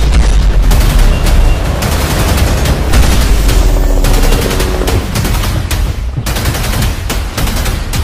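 Dense, rapid automatic gunfire, shot after shot, over a heavy low rumble, with a brief let-up about six seconds in.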